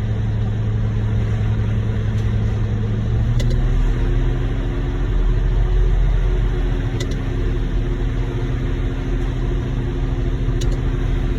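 Concrete mixer truck's diesel engine running steadily; about three seconds in it speeds up to a higher note and holds there.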